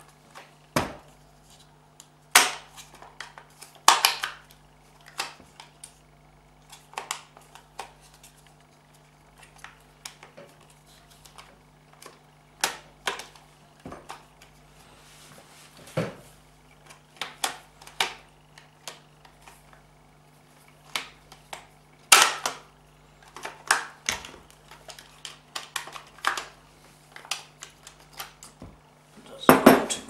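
Hard plastic parts of a Mercedes-Benz W202 automatic gear selector assembly being handled and fitted by hand, giving irregular clicks, knocks and clatters, with a few louder knocks, under a faint steady hum.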